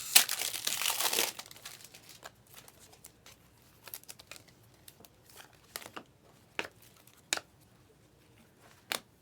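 A trading-card pack's foil wrapper being torn open and crinkled for about a second. Then come scattered short clicks and snaps as the cards are handled and flipped through one by one.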